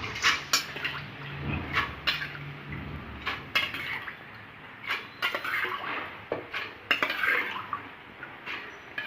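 Kitchen utensils clinking and knocking against cookware: a scattering of separate sharp knocks and clinks, some louder than others, as the soaked chickpeas are handled for the pressure cooker.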